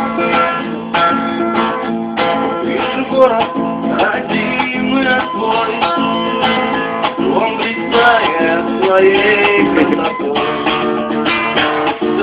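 Acoustic guitar strummed by hand, playing chords.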